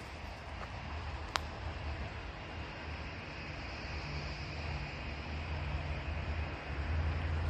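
Low, steady outdoor rumble with a faint hiss, slowly growing louder toward the end, and a single sharp click about a second and a half in.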